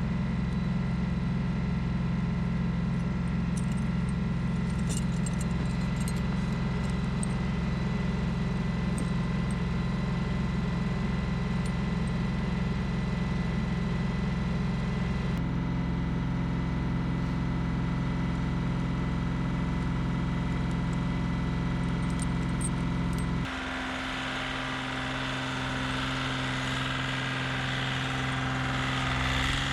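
An engine running steadily at a constant speed. Its pitch and tone change abruptly twice, at about the middle and about three-quarters of the way through.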